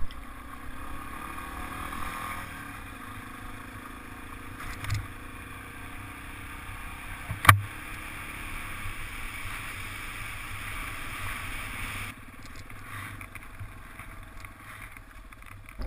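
Motorcycle engine running at riding speed with steady wind and road noise, its note shifting a little early on. A single sharp knock sounds about halfway through.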